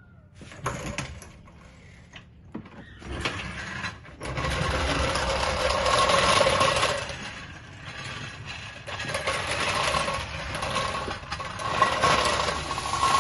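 Mechanical noise of the Mercedes S600 being lowered back down, by lift or jack: a few clicks, then from about four seconds in a loud, steady whirring hiss that dips briefly and builds again.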